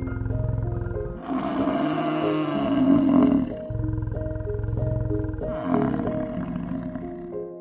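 A big cat growling and roaring over calm background music. Low pulsing growls alternate with a louder, rasping roar that begins about a second in and lasts about two seconds, and a shorter call comes near the end.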